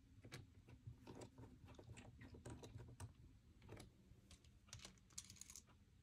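Faint, irregular small clicks and ticks of a precision screwdriver driving screws into a MacBook Pro's aluminium bottom cover as the cover is held and handled, with a quick scratchy cluster of clicks about five seconds in.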